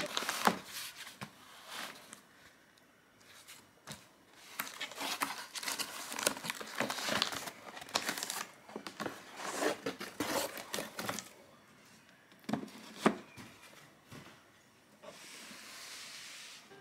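Plastic and paper packaging crinkling and tearing in irregular bursts as it is handled and opened, with a couple of sharp snaps, the loudest about 13 seconds in, and a soft steady rustle near the end.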